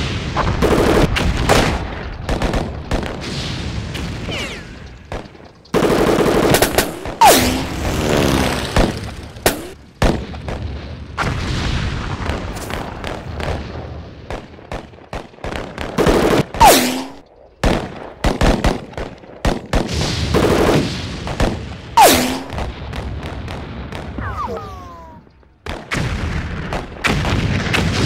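Battle sound effects of rifle and machine-gun fire, rapid sharp shots going on throughout, with a few short falling whistles.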